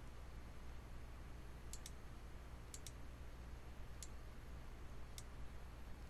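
A handful of sharp computer mouse clicks, a few in quick pairs, over a faint steady low hum.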